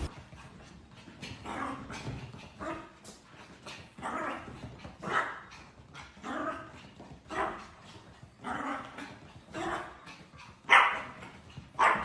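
A dog barking over and over, about one bark a second, the last few louder.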